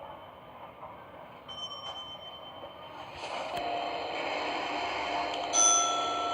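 Sigma elevator running, its noise swelling about three seconds in with a steady whine, then a single loud electronic elevator chime about five and a half seconds in.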